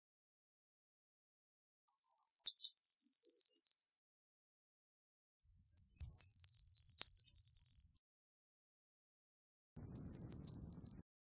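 Eurasian blue tit singing: three phrases, each a couple of high, thin notes stepping down into a fast, lower trill.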